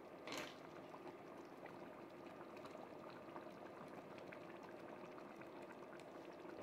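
Pot of beef paprikash with potatoes simmering, a faint steady bubbling with fine ticking pops, and one short louder noise just under half a second in.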